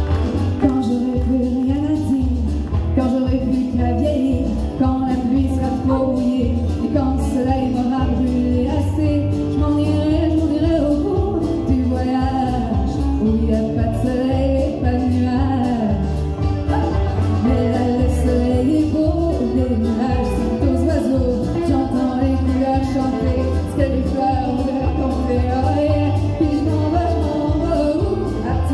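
A woman singing a country song into a microphone over a backing of music with a steady bass beat and percussion.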